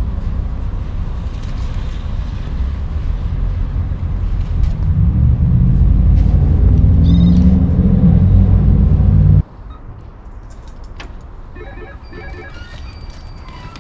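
Steady low rumble that builds and then cuts off abruptly about nine and a half seconds in. A door intercom's call tone rings briefly about seven seconds in. After the cut, a quieter background with a few electronic beeps.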